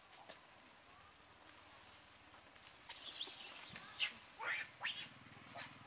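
A quick run of short, high-pitched animal calls, starting about halfway through, over a faint background; a low steady hum comes in near the end.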